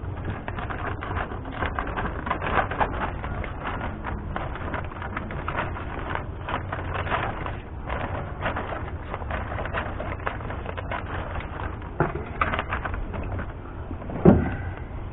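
A vapor-barrier sheet being cut and handled, with continuous crinkling and rustling and scattered small clicks, and a sharper knock near the end.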